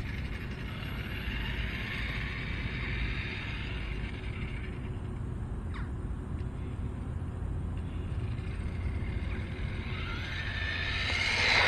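Brushless electric motor and geartrain of a 3D-printed Tarmo4 RC car whining, faint at a distance, then rising in pitch and growing louder near the end as the car speeds toward the microphone.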